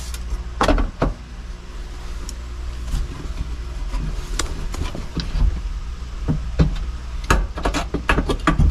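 Hands rummaging among the wiring and connectors under a car's dashboard, feeling for the ignition switch: scattered light clicks and knocks, more of them near the end, over a steady low hum.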